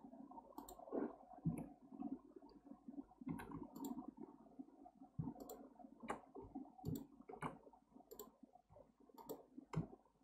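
Faint, irregular computer mouse and keyboard clicks, a dozen or so, over a faint low background noise.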